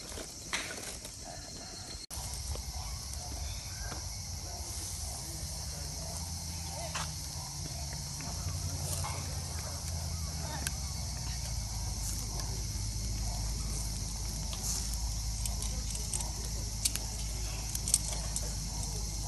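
Steady high-pitched drone of insects, with low wind rumble on the microphone that grows stronger partway through and a few faint clicks.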